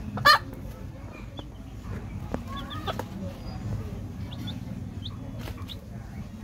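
Hen and her chicks calling: one loud, short call about a third of a second in, then scattered soft clucks and brief high peeps.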